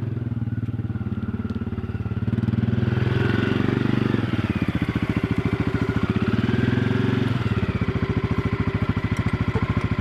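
ATV (four-wheeler) engine running with an even, rapid pulsing. It gets a little louder a couple of seconds in and shifts to a slightly different, steadier note about seven and a half seconds in.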